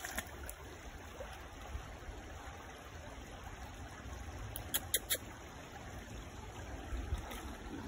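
Shallow creek water trickling over stones, faint and steady. Three sharp clicks come in quick succession about two-thirds of the way through.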